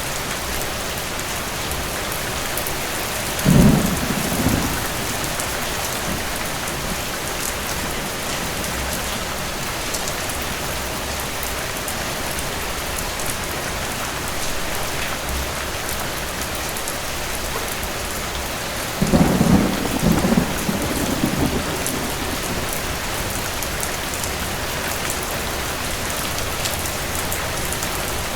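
Steady heavy rain with distant thunder: a short roll of thunder a few seconds in and a longer, louder rolling rumble about two-thirds of the way through.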